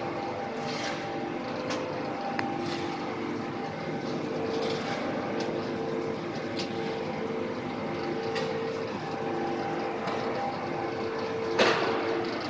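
Plastic film squeezer (screw-press dewatering machine) running: a steady machine hum with a held tone, scattered light clicks and rattles, and one louder knock about a second before the end.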